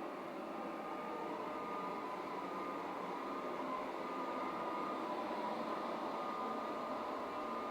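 Polaris 0920 robot vacuum cleaner running: a steady whirring hum with a thin motor whine that wavers slightly in pitch.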